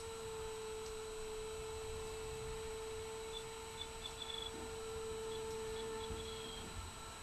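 Electric motor and propeller of an AXN Floater RC plane giving a steady, even-pitched drone. There are two short runs of faint high chirps in the middle.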